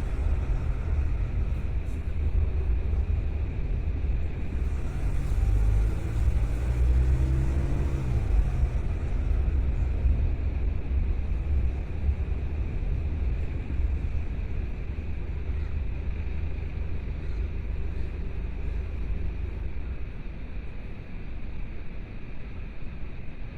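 Car driving along, a steady low rumble of road and engine noise. An engine note swells and fades briefly about six to nine seconds in.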